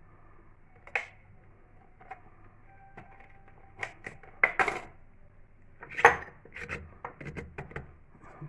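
Irregular knocks and clatter of cucumbers and chili peppers being handled and packed into jars, a dozen or so sharp strikes with the loudest about six seconds in.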